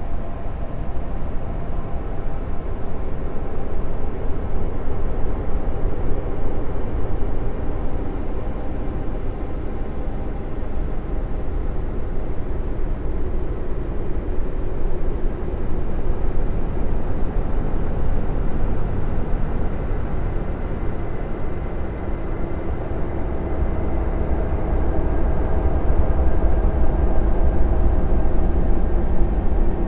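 Synthesized 'space sound' ambient drone for Jupiter's moon Callisto: a steady deep rumble with faint held tones above it, swelling slightly near the end.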